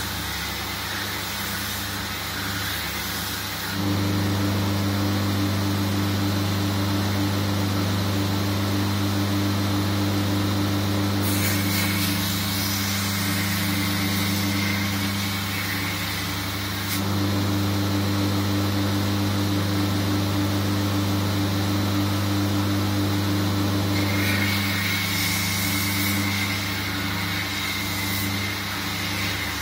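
Belt grinder running with a steady motor hum while a steel shashka (Caucasian sabre) blade is ground against the abrasive belt to open its edge, with a grinding hiss. It gets louder about four seconds in, and a thin high whine comes and goes in the middle and again near the end.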